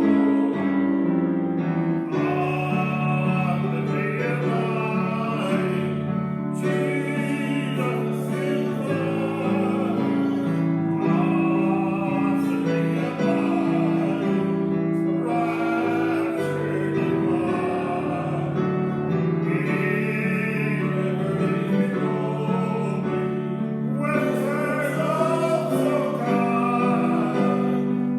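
Worship song in a church service: voices singing over steady instrumental accompaniment.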